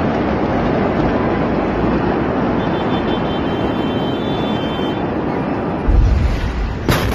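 A loud, steady roar from the explosion at the Beirut port, with a heavier low boom about six seconds in.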